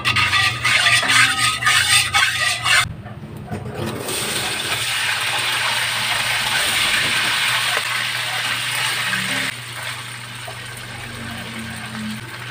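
Diced pork fat frying in hot oil in a wok: loud crackling and spattering for the first three seconds or so, then a steady sizzle that eases off a little near the end.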